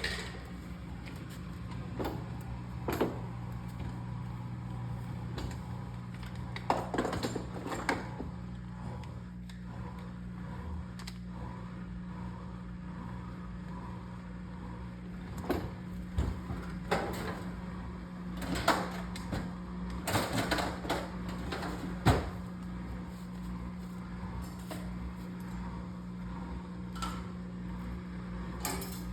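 A steady low machine hum with scattered knocks and clicks, like household clatter.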